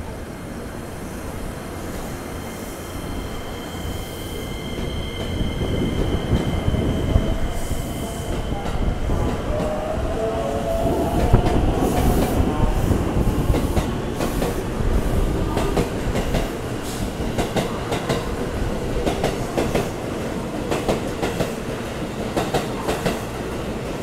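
JR West electric commuter train pulling out of a station platform. The motors whine and rise in pitch as the rumble builds over the first ten seconds or so. Then a quick run of wheel clicks over the rail joints follows as the cars speed past.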